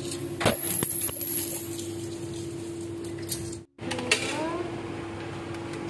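Coins dropped into the coin slot of a coin-operated laundromat dryer, clinking as they fall inside the mechanism. There is one clink about half a second in and another about four seconds in.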